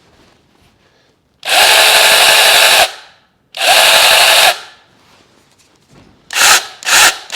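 NaTiddy 21-volt cordless mini pruning chainsaw run with no load: two steady runs of about a second and a half and about a second, then quick short blips of the trigger near the end.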